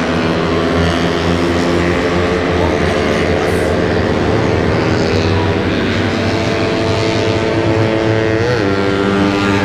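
Racing underbone motorcycles with open exhausts, several engines running at once around the circuit as a steady drone; one pitch rises and dips about eight and a half seconds in.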